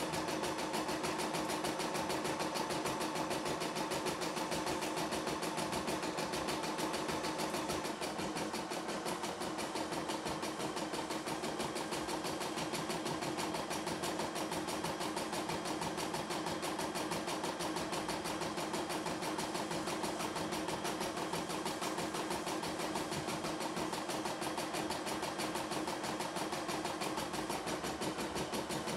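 CNY E960 computerized embroidery machine stitching a design: a rapid, steady run of needle strokes over the motor's hum, which softens slightly about eight seconds in.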